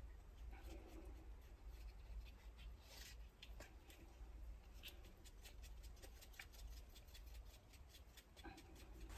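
Near silence: faint room hum with many tiny scattered clicks and light rustles as a gloved hand handles a small paper cup.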